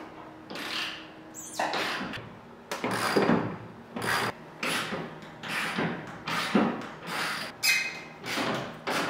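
Hand socket ratchet clicking in a steady run of short strokes, about two a second, as the bolts holding the nose gear mount to the firewall are backed out.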